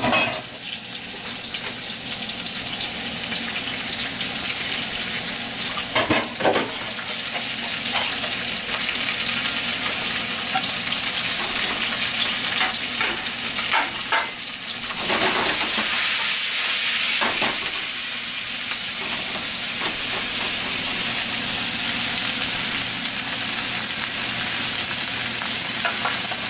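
Vegetables sizzling in hot oil in a wok as they are stir-fried, a steady hiss broken by a few short knocks of stirring. The sizzle grows louder about halfway through.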